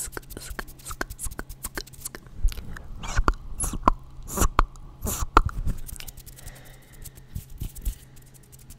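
Fast ASMR mouth sounds made right at a microphone, hands cupped around it: a rapid run of clicks and pops, loudest and thickest in the middle and thinning out towards the end.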